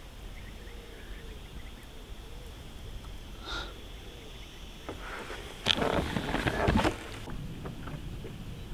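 Steady low wind and water noise on a fishing boat, with a cluster of clattering knocks and rattles lasting about a second, starting a little before six seconds in.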